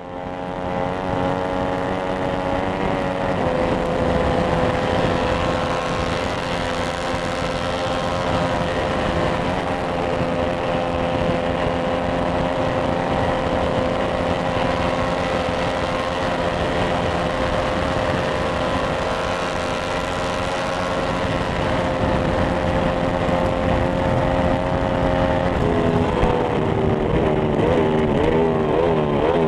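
Onboard sound of a Ducati 995 superbike's V-twin engine running hard at a steady high pitch, with wind rush around it. The pitch shifts about three seconds in, and near the end the revs drop and then rise and fall several times.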